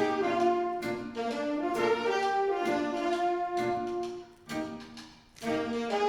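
Student jazz big band playing, with saxophones and brass holding sustained chords. The band drops out briefly about four and a half seconds in, then comes back in.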